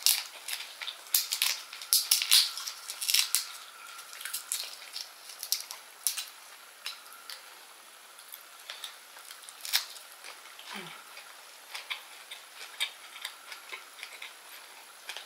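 Close-up clicks and crackles of a shrimp's shell being peeled apart by fingers, dense for the first few seconds, then sparser wet clicks of chewing.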